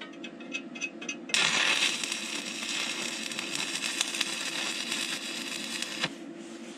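Stick-welding arc from a 2 mm 7018 (OK 48) electrode on a Migatronic Focus Stick 160 welder, tacking a steel tab. It gives a few short crackles as the arc is struck in the first second, then crackles and sizzles steadily for about five seconds and cuts off suddenly when the arc is broken.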